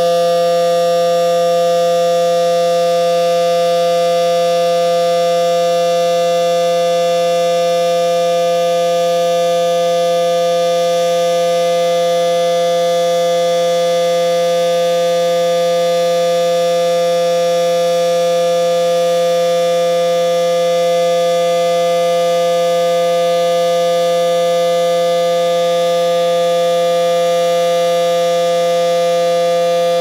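Federal Signal SD-10 outdoor warning siren sounding one steady, unwavering tone at constant pitch and loudness: the steady Alert signal of a siren test.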